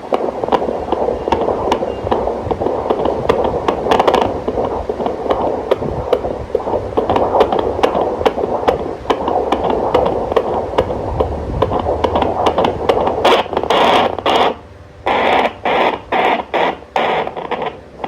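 Fetal heart monitor (Doppler) through its speaker: a hissing static with scraping clicks as the probe moves over the pregnant belly, then about thirteen seconds in a fetal heartbeat comes through as fast regular whooshing pulses, about two to three a second, one of the twins' hearts.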